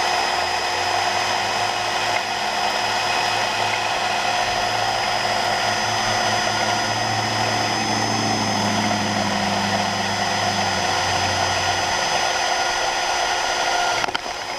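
Cordless drill running steadily as it bores an eighth-inch pilot hole through the rack's metal mount, a motor whine over the grind of the bit, until it stops just before the end as the bit breaks through.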